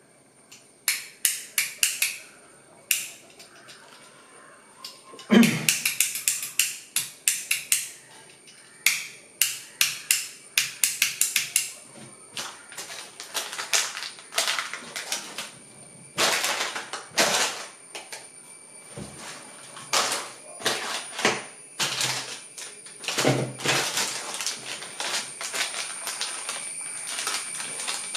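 Thin plastic packaging crinkling and crackling in quick runs of sharp crackles as a modular switch is unwrapped from its bag.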